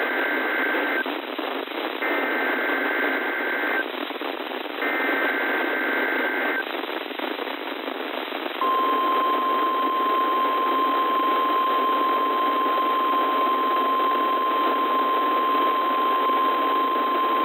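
NOAA Weather Radio Emergency Alert System activation heard through radio static. Three bursts of warbling SAME header data tones come first, the first already sounding at the start. About two seconds after the last burst, the steady 1050 Hz warning alarm tone comes on and holds.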